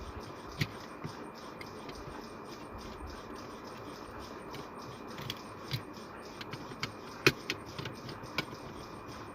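Scattered small clicks and taps from hands working a wire and screwdriver on the terminals of a plastic extension board, over a steady background hiss. The clicks come more often in the second half, with the sharpest one about seven seconds in.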